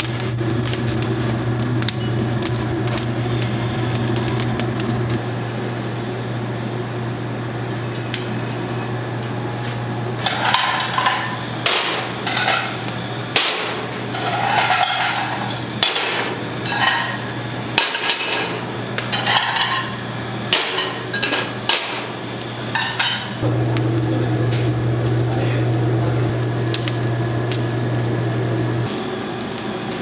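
Steady low machine hum, broken in the middle by a run of irregular knocks and metal-and-dish clatter from kitchen work.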